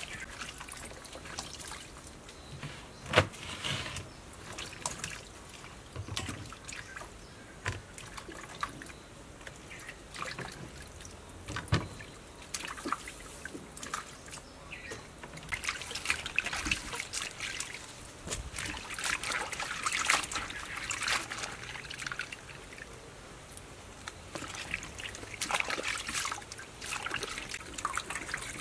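Leafy greens and long beans being washed by hand in a metal bowl of water: irregular splashing and trickling as the vegetables are swished and lifted out, with a sharp tap about three seconds in and busier splashing in the second half.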